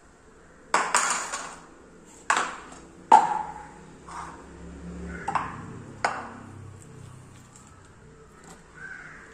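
Stainless-steel mixer-grinder jar handled and set down on a wooden board: about six metallic clanks, the loudest about three seconds in with a short ring.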